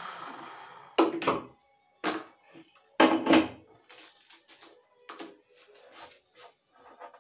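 A power saw's running noise dies away in the first second after the cut through a chipboard countertop. Then come three sharp knocks and clatters about a second apart as the clamps and wooden guide level are released and moved. After that, quieter rustling and scratching as paper masking tape is peeled off along the cut and the sawdust is brushed away by hand.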